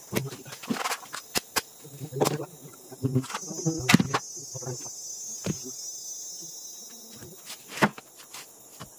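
Insects, crickets or cicadas, chirring steadily at a high pitch, with scattered sharp knocks and clicks throughout; the loudest come about four seconds in and near the end.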